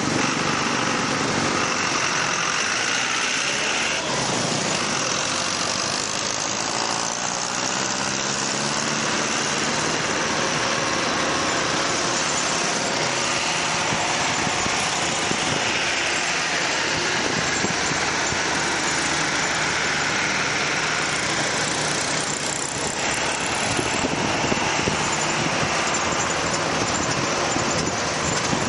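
Motorcycle taxi's engine running on the move through city traffic, rising and falling in pitch as it speeds up and slows, under a steady rush of wind and traffic noise.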